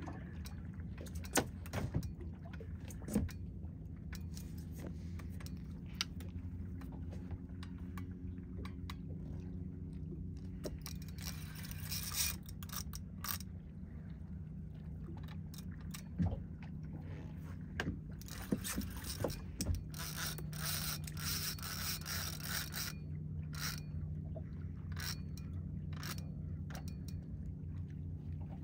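Spinning reel being cranked against a heavy fish on the line: irregular clicks and scraping rattles, denser in two spells partway through, over a steady low hum.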